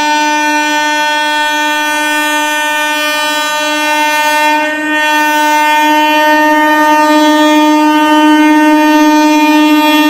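Diesel locomotive horn sounding one long, unbroken blast on a steady note as the train approaches. It dips briefly about five seconds in and grows a little louder toward the end.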